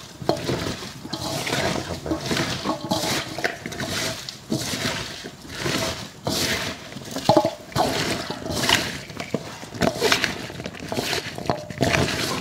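Hands tossing and squeezing sliced fresh bamboo shoots in a metal basin: a wet, crunching rustle in repeated strokes as the salt is worked in for pickling.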